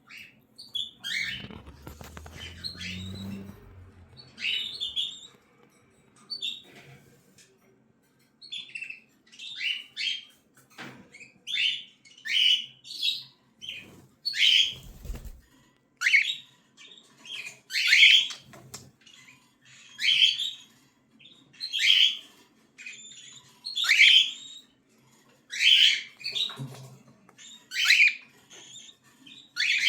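Cockatiel chicks calling: a few scattered calls over some low rustling at first, then, from about a third of the way in, short cries repeated about once a second and growing louder. A brief low thump comes about halfway.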